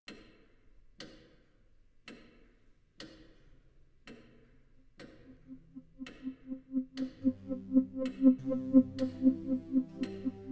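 Electronic sound-design score: a sharp clock-like tick exactly once a second, joined about five seconds in by a fast-pulsing synthesizer note. Around seven seconds low sustained synthesizer drones and higher notes come in, and the music grows louder.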